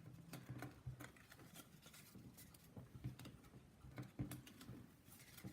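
Faint handling of trading cards: soft scattered clicks and rubbing as cards are shuffled together and put away.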